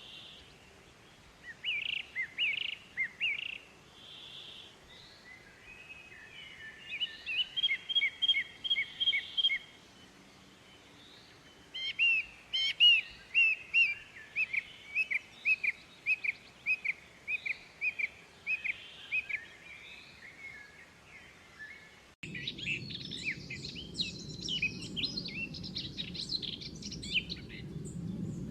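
Young white-eye (pleci) chirping in runs of short, quick high notes, about three a second through the middle stretch. About 22 seconds in, the background changes abruptly to a steady low hum and the chirps become denser and higher.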